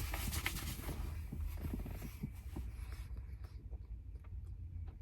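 Faint small clicks and light rustling over a steady low hum, thinning out after about three seconds to the odd tick.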